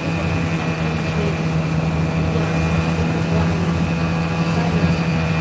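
Snowmobile engine running steadily at cruising speed, a constant low drone heard from the rider's seat.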